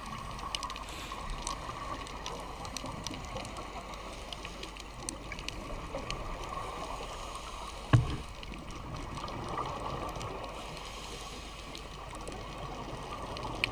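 Underwater ambience as picked up by a diving camera: a steady watery hiss with faint scattered clicks. There is one sharp knock about eight seconds in.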